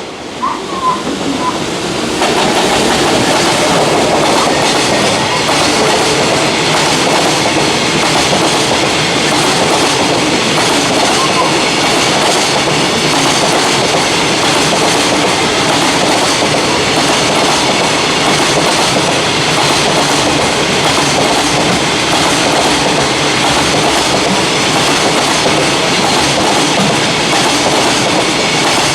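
Freight train's wagons rolling past close by, a steady loud clatter of wheels on the rails that grows louder about two seconds in.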